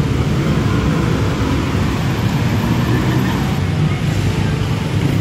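Busy city street traffic: a steady rumble of car and motorbike engines and tyres around a pedestrian crossing.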